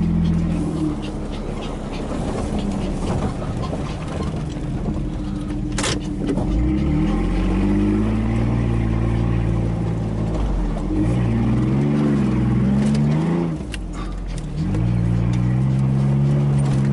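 Engine of a long-travel Nissan Frontier pickup heard from inside the cab while driving over sand, its note climbing under throttle and falling back several times. There are two sharp knocks, about six seconds in and near fourteen seconds.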